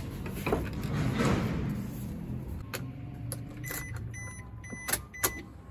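A Suzuki Wagon R being got into: a whoosh about a second in, sharp clicks from the door and ignition, then a run of short, high electronic beeps from the car's warning chime near the end.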